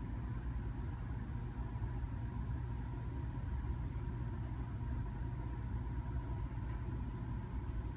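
Steady low rumble of a car's engine and running noise heard from inside the cabin, with a faint steady high whine above it.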